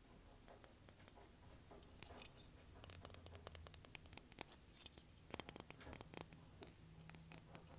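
Fingers tapping and scratching on seashells and small beach trinkets: quick, light, irregular taps that begin about two seconds in and come thickest a little after halfway.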